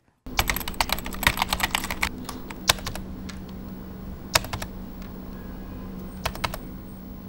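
Computer keyboard typing: a quick run of keystrokes for about the first two seconds, then a few scattered single key presses, over a steady low hum.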